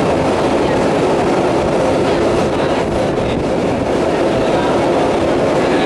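A long metro escalator running: a steady mechanical rumble and rattle from the moving steps and handrail.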